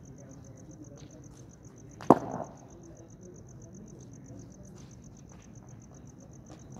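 A single sharp crack about two seconds in, a hard cricket ball striking something in the practice nets. Behind it runs a steady, rapid, high-pitched chirping.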